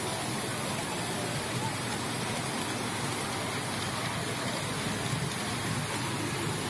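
Steady rolling noise of a ride-on miniature railway train travelling along its track, heard from aboard, with people's voices in the background.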